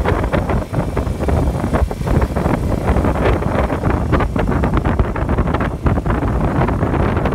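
Loud, steady rumbling noise with irregular crackling, like air buffeting the microphone.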